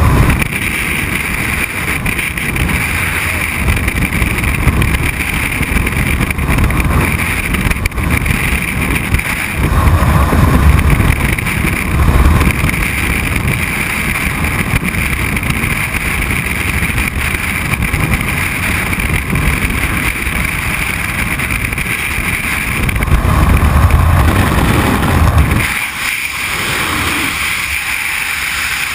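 Freefall wind rushing over a skydiver's helmet-mounted camera microphone, a loud steady roar that swells a couple of times and then drops off sharply near the end.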